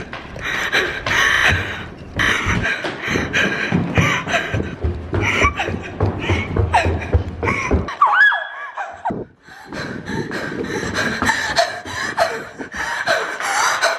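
A woman's rapid, heavy panting and gasping close to the microphone, in quick noisy bursts, breaking off briefly about nine seconds in.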